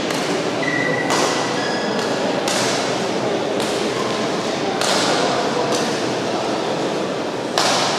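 Badminton rackets striking a shuttlecock back and forth in a rally, a sharp hit about every second, over steady hall noise.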